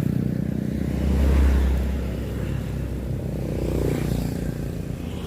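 A small vehicle engine running steadily with a low drone, swelling about a second in; it cuts off abruptly at the end.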